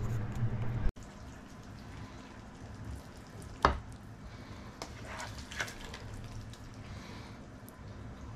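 Saucy pork curry being spooned from a pan with a slotted spoon: faint wet dripping and slopping of the sauce, with one sharp clack of the spoon about three and a half seconds in and a few softer scrapes a couple of seconds later.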